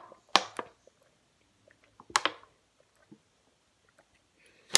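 A few sharp crinkles of a thin plastic water bottle as someone drinks from it, about two seconds apart.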